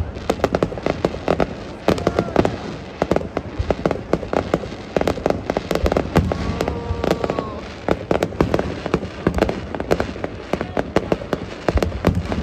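Fireworks display: a dense barrage of shell bursts and crackling, many bangs a second without let-up.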